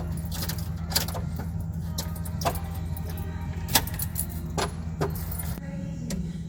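Irregular sharp clicks and clinks of hard plastic trim pieces and small metal parts being handled during car interior reassembly, several over a few seconds.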